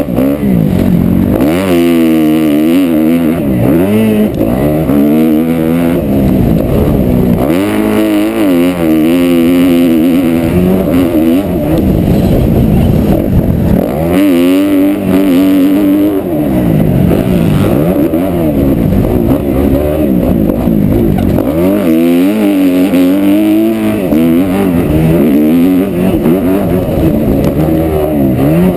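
Kawasaki KX250F's four-stroke single-cylinder engine revving hard under racing throttle, its pitch climbing and dropping again and again as the rider accelerates and backs off. Heard up close from on board the bike.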